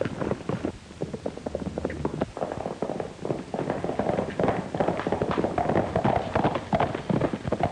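A horse galloping on a dirt track: a rapid, uneven run of hoofbeats.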